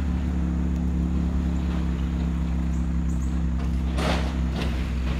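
2016 Chevrolet Camaro RS's 3.6-litre V6 idling steadily through its dual-mode exhaust, heard at the quad tailpipes. About four seconds in, two brief scuffing noises come about half a second apart.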